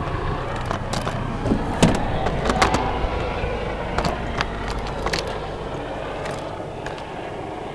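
Distant helicopter's low, steady rumble, slowly fading, with scattered sharp clicks over it.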